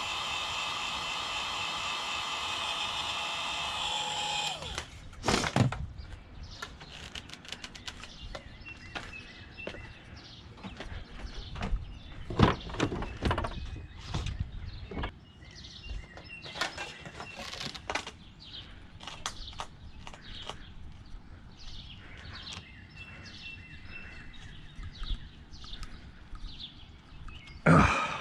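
Heat gun running steadily, then switched off about four and a half seconds in. After it come irregular clicks and knocks as a heated, glued-on clamp is worked off a water-fed pole section. Birds chirp now and then in the background.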